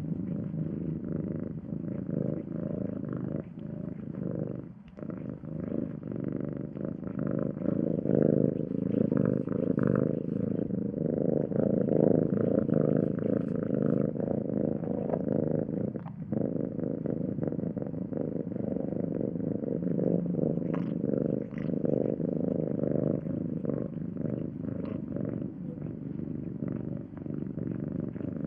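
Domestic cat purring steadily and continuously, with brief breaks about five seconds in and about sixteen seconds in.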